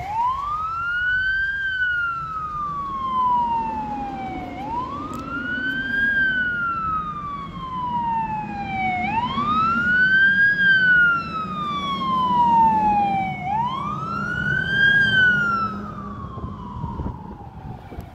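Fire engine siren on a slow wail as the engine approaches. The pitch rises quickly, then falls slowly, about every four and a half seconds, over a low rumble of traffic.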